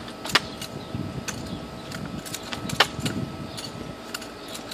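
Drill rifle being spun and caught in an exhibition drill move: a string of sharp clicks and knocks as the hands strike the rifle and its sling rattles. The loudest knock comes a little under three seconds in.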